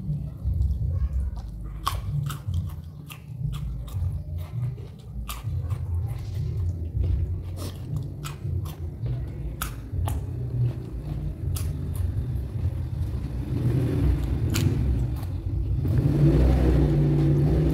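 Close-miked chewing and biting of raw vegetables, with many sharp crunches and mouth clicks over the chewing. The chewing gets louder near the end.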